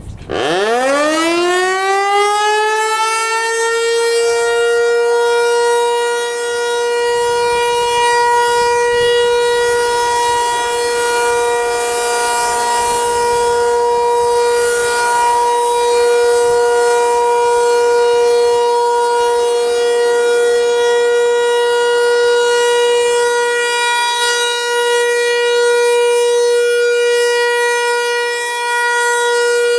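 Federal Signal 508 outdoor warning siren starting up, its pitch rising for about four seconds, then holding one steady tone on its alert signal during a scheduled test.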